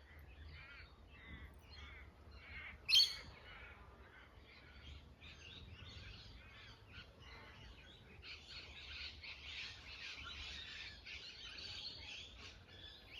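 Several wild birds chirping and singing in a dawn chorus. There is one louder call about three seconds in, and the song grows denser from about eight seconds on.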